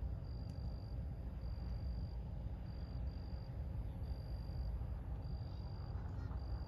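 An insect, likely a cricket, trilling high and thin in repeated bursts about a second apart, over a low steady rumble.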